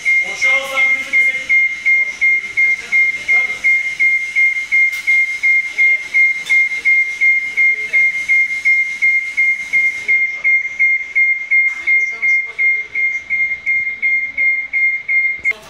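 Scissor lift's motion alarm: a loud, high beep repeating about three times a second, cutting off suddenly near the end.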